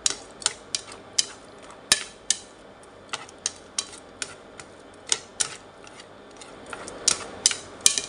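Wooden chopsticks clicking against a frying pan while stirring shrimp in sauce: sharp, irregular taps about two a second, with a short lull about six seconds in.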